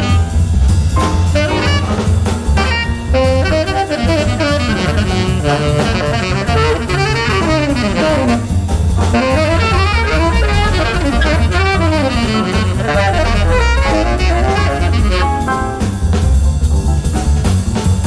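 Jazz quartet playing: tenor saxophone running fast lines up and down over double bass and drum kit, with piano.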